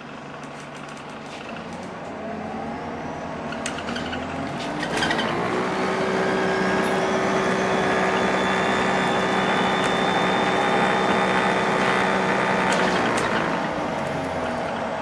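Alexander Dennis Enviro 400H hybrid double-decker bus heard from inside while accelerating: the hybrid drive's whine rises in pitch over the first few seconds, then holds steady with the bus running hard. Near the end it eases down, with a few sharp clicks and rattles around a third of the way in and near the end.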